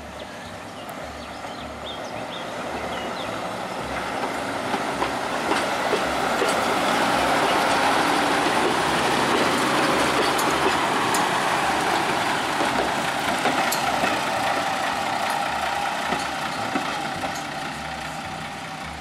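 Diesel railcar passing close by: its engine and wheels rumble up to a peak and then fade away, with scattered clicks from the wheels over the rail.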